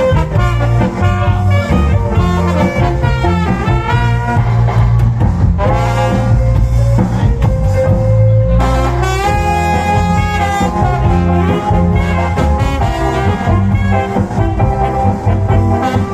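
Loud cha-cha dance music with brass horns over a heavy, steady bass, played through a big PA sound system.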